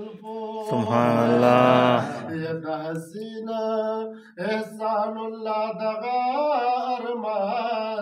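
A man singing Pashto devotional verse unaccompanied, in long melodic phrases, loudest between about one and two seconds in.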